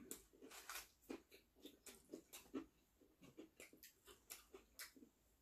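Faint chewing and mouth sounds of people eating fried chicken and biscuits: a scatter of soft, irregular clicks.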